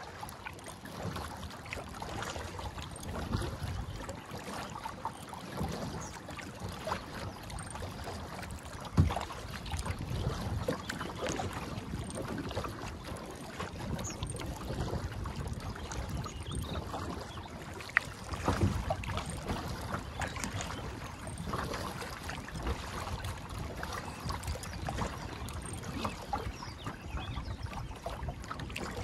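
Kayak being paddled along calm water: irregular splashing from the paddle strokes and water lapping at the plastic hull. Two sharp knocks stand out, about nine and eighteen seconds in.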